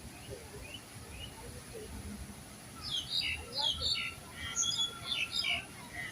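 Wild birds chirping: a few faint calls at first, then a busy flurry of short, high, sharp chirps from about halfway through, over a steady low background noise.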